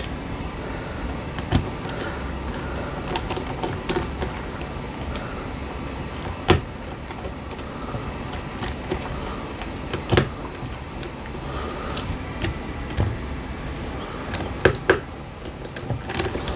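Scattered sharp clicks and taps of small tools and plastic and metal parts as an RC car's steering bell crank assembly is taken apart, a pair of clicks close together near the end, over a steady background noise.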